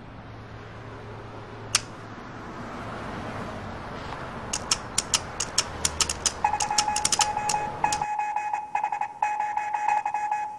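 A crosswalk push button clicked over and over in quick succession, joined about six and a half seconds in by a high electronic beep that pulses on and off in short and long beeps like Morse code.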